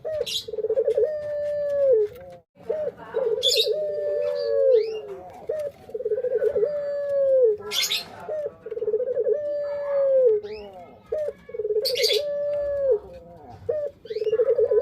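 Male puter pelung turtle dove cooing: a stuttering run of short coos that slides into one long held coo dropping at the end, repeated about five times at a steady pace. Short, sharp high chirps cut in every few seconds.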